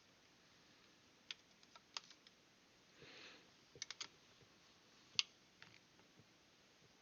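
Scattered light clicks as metal alligator clips and the adjustable arms of a helping-hands soldering stand are set onto a small plug, the sharpest click about five seconds in, with a soft rustle around three seconds.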